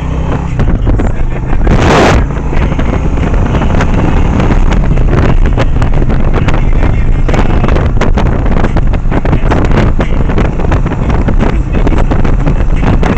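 Heavy wind buffeting a motorcycle-mounted camera's microphone at road speed, over the steady rumble of the motorcycle running, with a loud gust blast about two seconds in.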